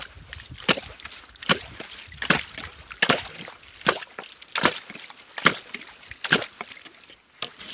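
Long-handled ice chisel jabbed into slush and broken ice floating in an ice-fishing hole: a steady run of splashing chops, a little more than one a second.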